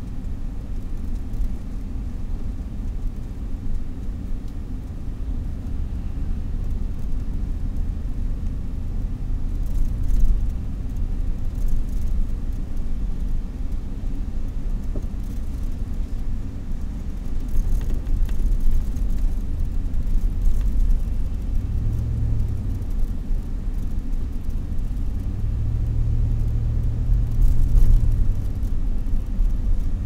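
Car driving along a city street, heard from inside the cabin: a steady low rumble of engine and road noise, with the engine hum swelling twice in the last third.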